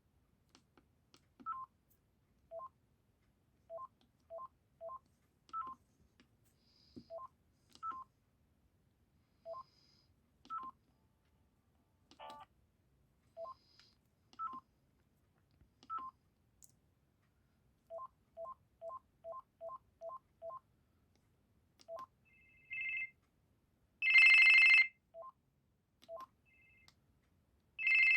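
Panasonic GD67 mobile phone beeping as its keys are pressed: short, separate two-note beeps at irregular intervals, a quick even run of about seven beeps two-thirds of the way through, then louder, brighter bursts of ringtone near the end, the loudest lasting about a second.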